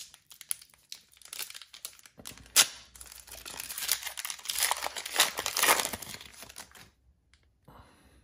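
A small plastic trading-card pack wrapper being peeled open and crinkled by hand, with one sharp rip about two and a half seconds in and a few seconds of busy crinkling that stops about a second before the end.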